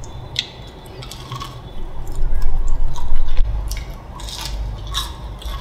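Crisp fried breadcrumb crust of yogurt cake crunching in several sharp crackles, with a stretch of dull low thuds about two seconds in.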